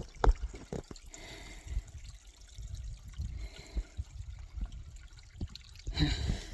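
Water trickling and dripping, with scattered short knocks and low scuffs close to the microphone.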